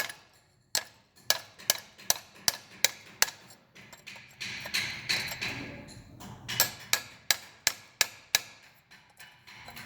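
Hammer blows knocking the casting mold off a freshly cast bronze piece, sharp knocks about three a second. About four to six seconds in, the blows give way to a rough, scratchy noise, then the quick knocks resume.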